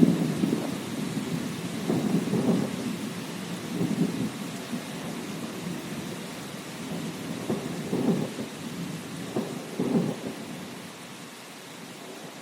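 Thunder rumbling and crackling over steady rain, in several swells that die away near the end, leaving only the hiss of the rain.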